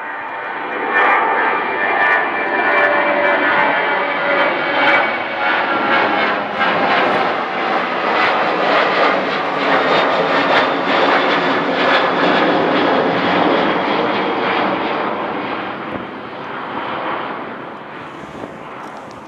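Boeing 737 jet airliner climbing out after takeoff, its twin jet engines at climb power: a loud, steady roar with crackle and whining tones, one of which falls slightly in pitch as it passes. It fades as the aircraft climbs away near the end.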